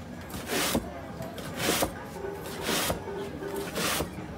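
A knife blade crunching down through a slab of freshly set kaminari-okoshi (puffed rice bound with syrup) onto a cutting board, cutting it into strips. There are four short cuts, about one a second.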